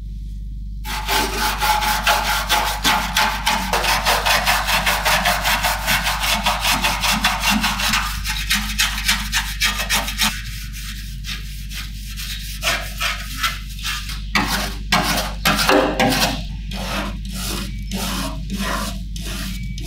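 Small hand brush scrubbing caked dirt and flaking paint off the steel body of a 1962 Vespa scooter. It starts with quick back-and-forth strokes, about five a second. After a brief lull in the middle come slower, separate strokes.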